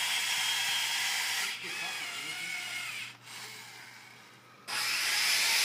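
A small motor running with a steady hiss and whine. It drops away about a second and a half in, leaving a wavering whine, and cuts back in abruptly near the end.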